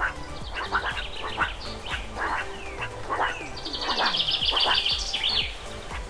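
Birds calling: short, sharp chirps repeating every half second or so, with a fast, high trill of rapid notes from about three and a half to five and a half seconds in.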